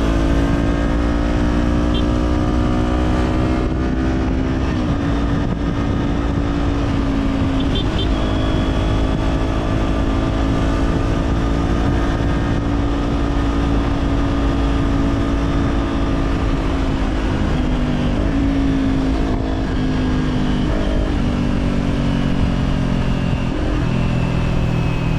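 Kawasaki Z400 parallel-twin engine running at a steady road speed through an Orion Katya slip-on exhaust. The pitch eases up and down a little and falls near the end. Low wind rumble sits underneath.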